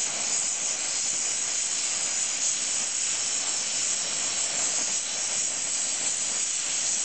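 Gas welding torch flame hissing steadily while a bead is run with filler rod, with no popping.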